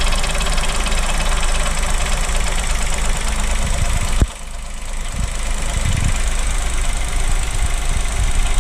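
Chevrolet Onix 1.0 turbo engine idling cold, with a hiss and knocking noise from the engine bay that comes and goes with the brake pedal; a sharp click about four seconds in, after which the hiss drops away and slowly builds back. The owner suspects something brake-related, since the noise only appears on a cold engine when the brake is pressed.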